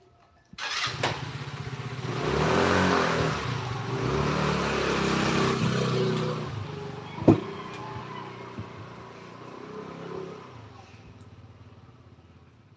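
An engine starts up and runs, its pitch rising and falling as it revs, then fades away over several seconds. A single sharp click sounds about seven seconds in.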